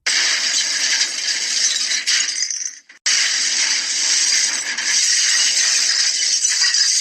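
Continuous rattling and clattering of many small hard objects being rummaged through, with a brief break about three seconds in.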